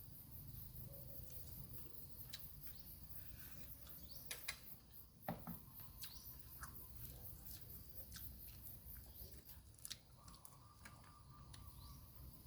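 Faint, scattered light clicks and taps over a low steady hum, with a faint short tone about 6 seconds in and a longer one near the end.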